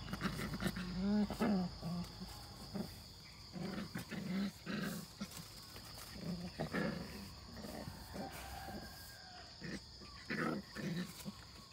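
Two puppies play-fighting, giving short growls and yelps in repeated bursts, some with rising and falling whiny pitch about a second in.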